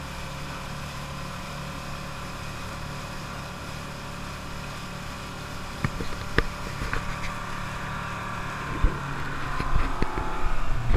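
A MasterCraft X20 wakesurf boat's inboard engine runs steadily at surf speed under wind and water noise. From about six seconds in, scattered sharp knocks come through and the rushing noise grows louder.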